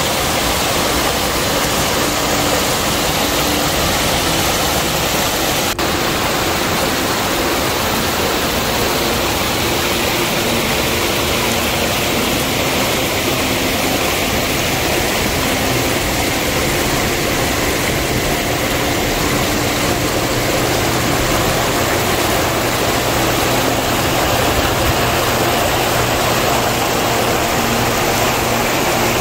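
Small mountain stream cascading over mossy rocks: a steady, loud rush of water. A faint low hum joins about two-thirds of the way through.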